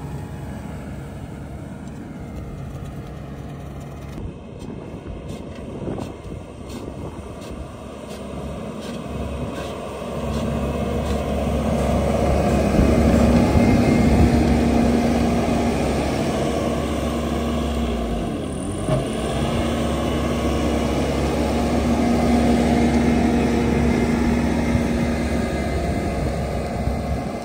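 Skid-steer loader working the ground with a Coneteks 2.13M hydraulic milling and soil-conditioning attachment in wet mud: a steady engine and machine drone that gets louder about ten seconds in, briefly dips in pitch and level a little past halfway, then picks back up.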